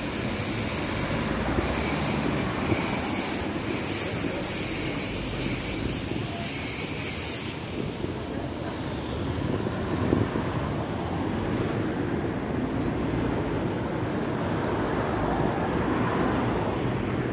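Steady noise of traffic on a busy city street, with a high hissing squeal in the first half.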